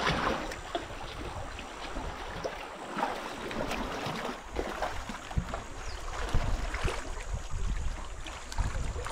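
Rough sea surf washing and splashing, uneven, with scattered sharper splashes and low rumble.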